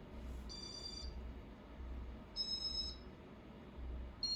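Three short, high electronic beeps about two seconds apart, over the low hum of a Casablanca Zephyr ceiling fan running at a middle speed.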